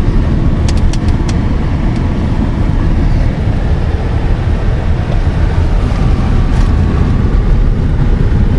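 Car driving along a paved road, heard from inside the cabin: a steady low rumble of road and engine noise.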